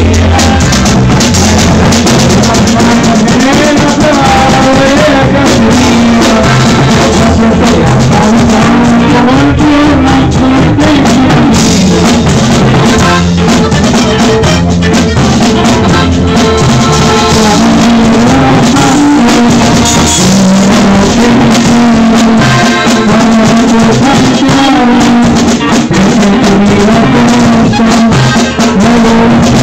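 Live band rehearsal at full volume: button accordion, electric bass, guitar and drum kit playing together, with a singer on a microphone.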